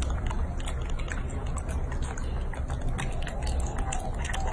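Macaques chewing and smacking on soft canned fruit close to the microphone: a run of short wet clicks over a steady low rumble.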